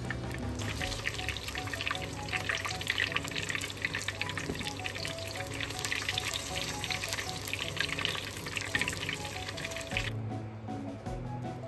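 Spring rolls frying in a pan of oil: a dense crackling sizzle that stops about ten seconds in. Background music plays under it.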